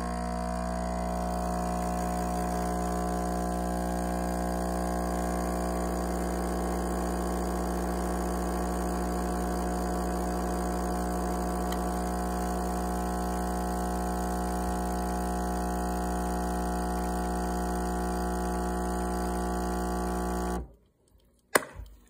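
Breville Bambino Plus espresso machine's vibratory pump humming steadily while pulling an espresso shot. It cuts off abruptly about twenty seconds in as the shot ends, followed by a sharp click and a few drips from the spouts.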